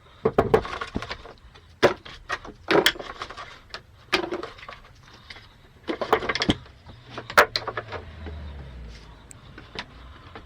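Irregular wooden knocks and clatters, wood and tools being handled at a wood lathe, with a faint low hum that slides down in pitch around eight seconds in.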